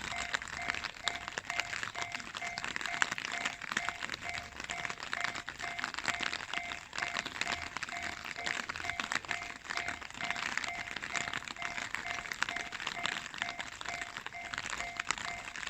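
Japanese railway level-crossing alarm ringing: an electronic two-tone bell repeating in a steady rapid pattern, over a continuous rushing, crackling noise.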